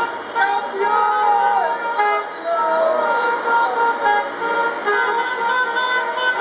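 Several car horns honking together and held on, a celebratory motorcade of passing cars, with people shouting over them.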